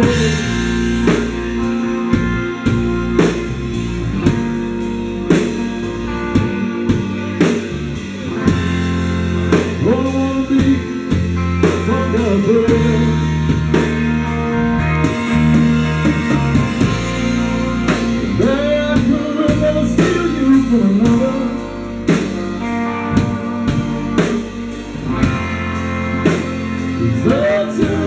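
A live rock band playing: a drum kit keeping a steady beat under electric guitars and a bass guitar, with singing over it.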